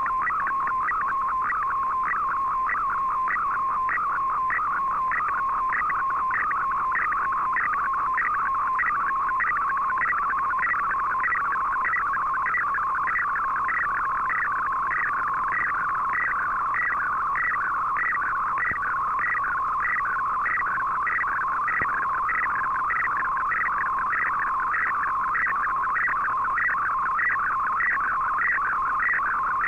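Shortwave digital picture transmission (Fldigi MFSK picture mode) heard through a communications receiver: a warbling, chirping data tone that repeats about twice a second, with a faint hiss behind it.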